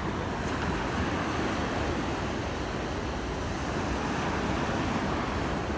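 Steady wash of surf on a sandy beach, with wind rumbling on the microphone.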